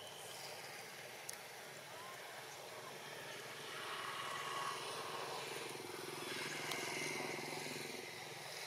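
Outdoor background noise with the faint hum of a motor-vehicle engine, swelling a little louder through the middle and easing off near the end.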